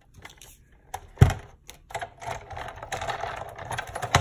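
A Sizzix Big Shot die-cutting machine set down on the table with a heavy thump about a second in, then a couple of seconds of rapid plastic clicking and rattling as its magnetic platform is handled into place on the machine, ending with a sharp click.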